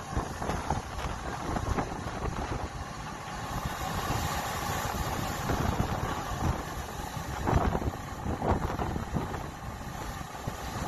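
Gale-force wind buffeting the microphone over rough sea surging and breaking against the harbour rocks. Two louder bursts come about three-quarters of the way through.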